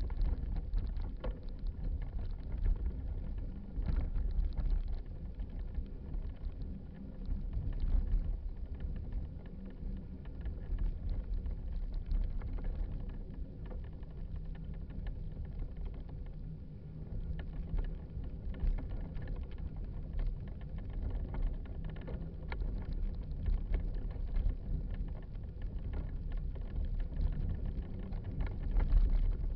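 Low rumble of wind and handling noise on a moving body-mounted camera, with frequent small knocks and rattles from the camera jostling as it travels along a dirt trail.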